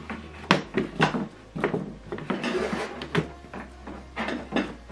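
Handling noise as a compact soundbar is set down on its cardboard box and its cables are moved: a string of knocks and taps, with a short scrape about halfway through.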